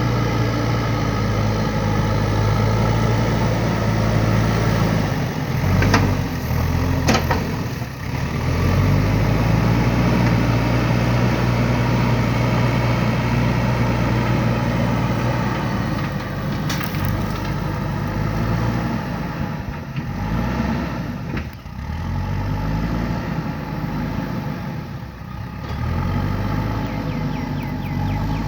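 JCB 3DX backhoe loader's four-cylinder diesel engine running steadily while working, with two sharp knocks about six and seven seconds in. In the second half the engine note dips and recovers several times as load comes on and off.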